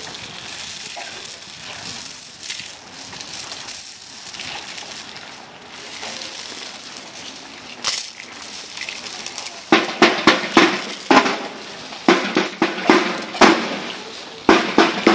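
Marching snare drums struck in a steady procession beat of about three hits a second, starting about ten seconds in. Before that there is only a soft noise of a walking crowd.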